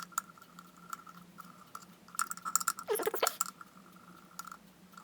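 Screws being unscrewed and taken out of an electric kettle's plastic housing: scattered clicks and clinks of screwdriver, screws and plastic, busiest about two to three and a half seconds in. A faint steady hum with a higher whine sits underneath.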